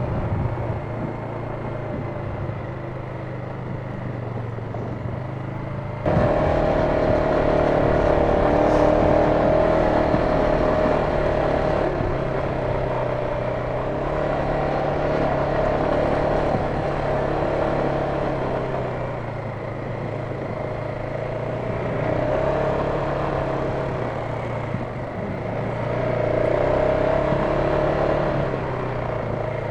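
Off-road vehicle engine running steadily while driving along a trail, with a steady whine over it. It gets suddenly louder about six seconds in, then rises and falls gently.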